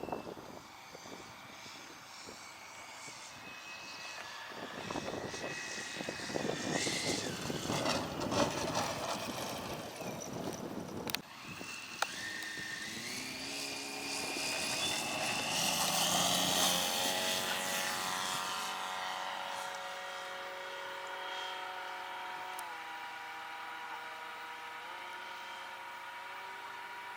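Radio-controlled aerobatic pattern airplane flying, its motor and propeller droning with a pitch that glides and steps as the throttle changes. The drone rises in pitch and grows loudest about sixteen seconds in, then holds a steadier tone with small pitch steps. Gusty wind noise fills the first half, with two sharp clicks near the middle.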